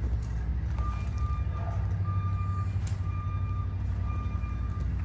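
Vehicle backup alarm beeping about once a second, starting about a second in, over a steady low rumble.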